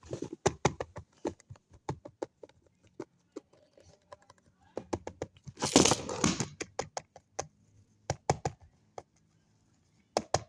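A small handbag being handled: irregular light clicks and taps, with a short louder noisy burst about six seconds in.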